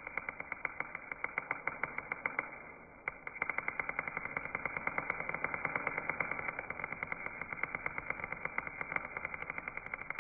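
Welding arc crackling steadily, with rapid sharp pops from a beginner's weld bead being laid. The arc breaks off briefly about three seconds in, then strikes again and runs on.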